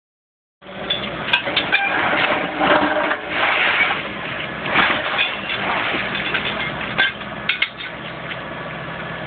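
Huddig 1160 backhoe loader running at a steady engine speed, with irregular knocks and metallic clatter from its sleeper-changer blade being worked over the track.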